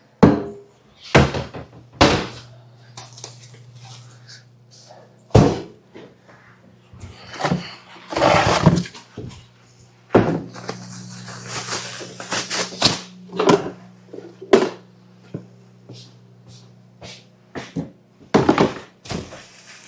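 Household items and cabinet doors being handled at a kitchen counter: a series of sharp knocks and thunks, with a rustle of plastic about eight seconds in, over a steady low hum.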